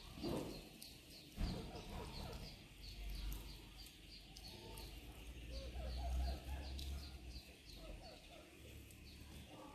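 Birds chirping in the background: short high chirps repeating several times a second, over a low rumble.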